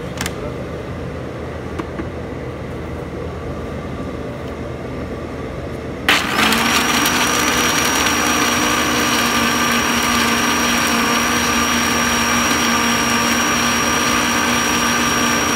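Countertop blender switched on about six seconds in and running at one steady speed with a high whine, puréeing boiled cashews with water into a paste. Before it starts there is a steady background hum and a click as the lid is set on the jar.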